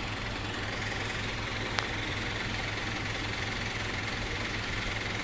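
Crane's engine running steadily with a low hum, and a single sharp click a little under two seconds in.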